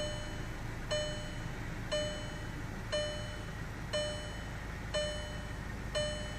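VW Golf Mk6 GTI dashboard warning chime ringing about once a second, over the low, steady hum of the engine running after it has finally started.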